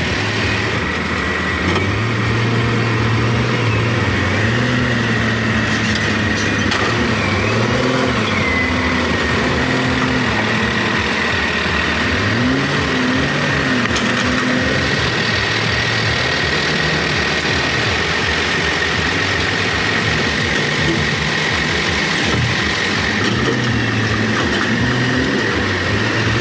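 Engine of heavy machinery running throughout, its pitch rising and falling as it works, with a steady high whine over it.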